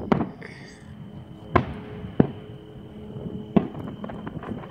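Distant aerial fireworks shells bursting: about four sharp bangs, irregularly spaced over a few seconds.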